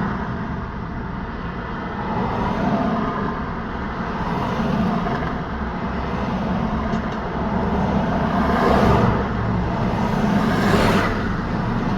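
Road traffic: a steady hum of vehicles and tyres, with two louder vehicles passing close by, one about nine seconds in and one about eleven seconds in.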